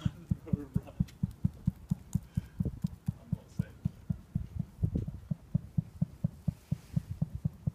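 Steady low throbbing, an even pulse of about five soft thumps a second.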